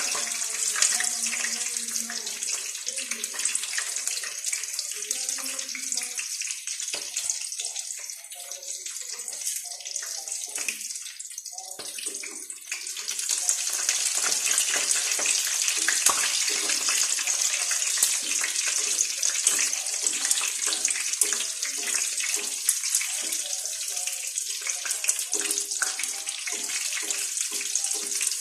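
Dove meat frying in hot oil: a steady sizzle with dense crackling. It drops quieter for a few seconds about a third of the way in, then picks up louder again.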